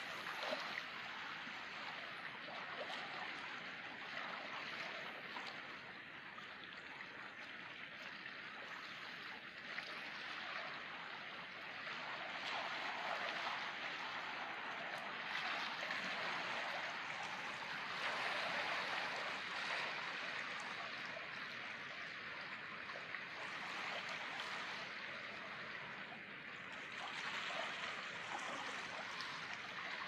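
Harbour water washing and lapping in a steady rush that swells and fades every few seconds.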